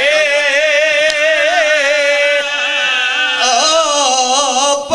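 A man's voice singing long, wavering held notes of a mournful majlis lament, a zakir's sung recitation of grief for Ali Akbar, amplified through a microphone. There is a brief pause for breath near the end.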